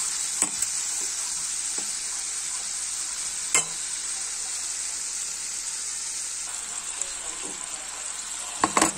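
Breaded chicken strips deep-frying in hot oil in a stainless steel pot: a steady sizzle, broken by a few sharp clicks, the strongest about three and a half seconds in and a short cluster near the end.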